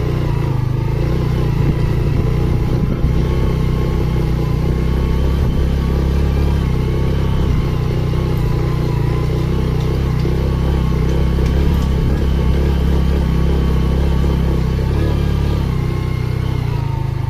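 Motorcycle engine running steadily under way, with a couple of small knocks in the first few seconds.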